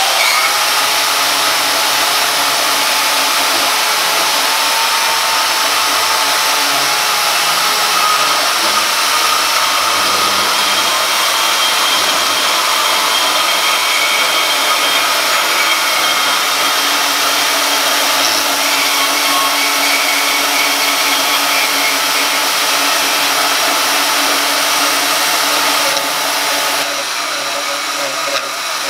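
Portable bandsaws run at full speed, cutting through 2-inch steel tubing with 1/8-inch walls: a steady motor whine with the blade rasping through metal. It gets a little quieter about 26 seconds in, as the first saws finish their cuts.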